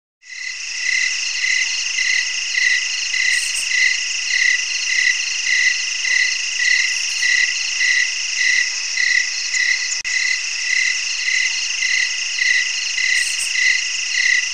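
Night chorus of calling insects, such as crickets: a steady high trill with a regular chirping call about one and a half times a second, fading in just after the start.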